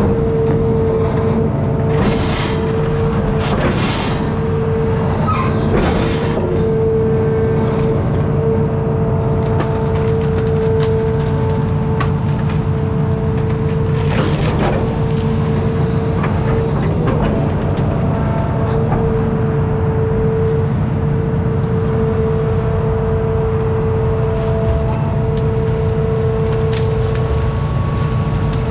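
Hitachi ZX210 amphibious excavator's diesel engine running steadily under load, with a constant hydraulic hum over the engine rumble. A few knocks and clanks come around two to four seconds in and again about fourteen seconds in.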